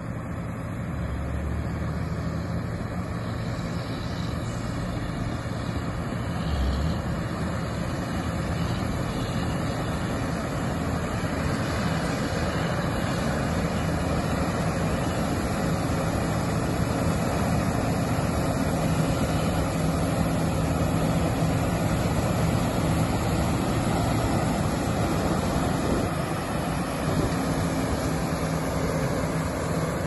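John Deere 9660 STS combine harvester running steadily while harvesting wheat: a constant engine drone with the noise of the machinery.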